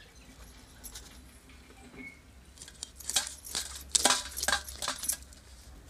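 A curved iron blade scraping the scales off a whole rohu fish, in a quick run of about ten sharp rasping strokes starting about two and a half seconds in.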